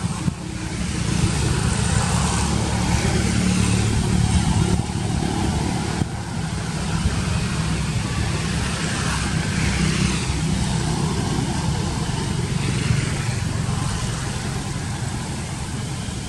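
Steady low engine rumble of a motor vehicle with a broad hiss over it. It swells in the first second, is loudest for the first few seconds, then eases a little.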